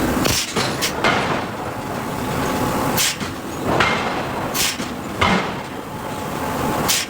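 Hydraulic forging hammer striking hot steel: about six heavy blows at uneven intervals over a steady background noise.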